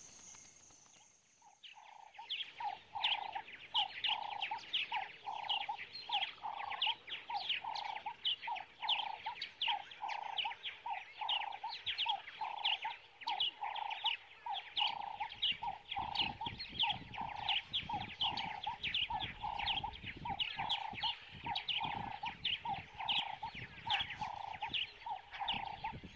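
Birds calling: a single note repeated steadily about twice a second, with quick high chirps over it. A low rumble joins about halfway through.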